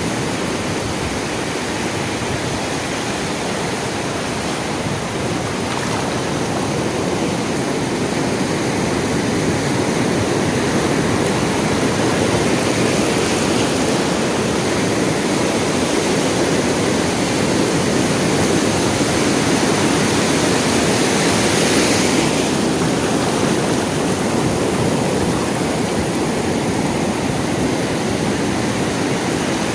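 Sea waves washing on a shore in a continuous rush of surf, swelling slowly to a peak about 22 seconds in and then easing.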